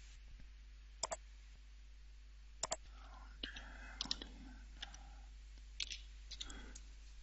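Computer mouse clicks, each a quick press-and-release pair, about a second in and again near three seconds. They are followed by a scatter of faint, irregular keyboard keystrokes.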